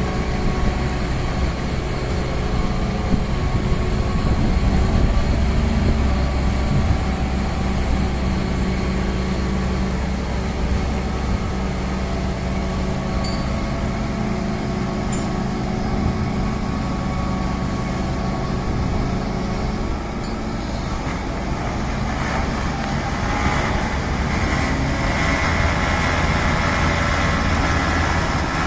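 Truck-mounted crane's engine running steadily as it hoists a railway bogie, a low, even hum. A rushing hiss joins it in the last several seconds.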